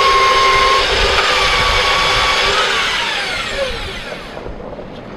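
Electric facing tool (rotary trimmer) of an HDPE butt-fusion welding machine running, planing the pipe ends flat and square. About three seconds in it is switched off and spins down with a falling whine.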